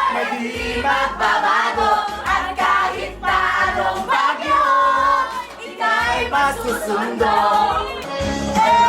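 Music with voices singing, some notes held long.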